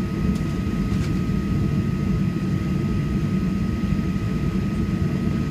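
Cabin noise of a Boeing 737-800 on the ground awaiting takeoff: a steady low rumble from its CFM56 engines at idle, with a constant high whine. Two faint clicks come about half a second and a second in.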